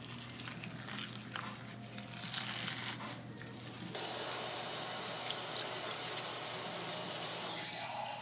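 Wet raw seaweed being squished and handled in a pan of water, with small irregular clicks and rustles. About four seconds in, a kitchen tap starts running steadily.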